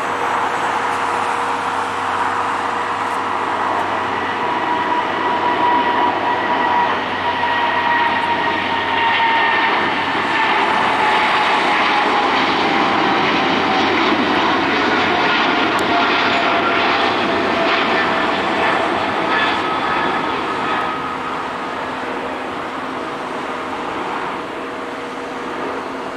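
Boeing 777-300ER's twin GE90-115B turbofans at takeoff power as the jet lifts off and climbs out. A loud roar builds, carrying whining tones that slowly fall in pitch as it passes, then eases off near the end.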